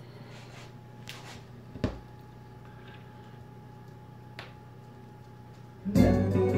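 Vinyl record surface noise from a Dual 704 turntable's stylus in the lead-in groove: faint crackle and a few pops over a steady low hum. About six seconds in, the record's music starts loudly.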